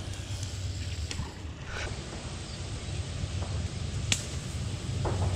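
Catfish rod and baitcasting reel being cast: a single sharp swish about four seconds in, with a few light clicks of reel handling before it, over a steady low rumble.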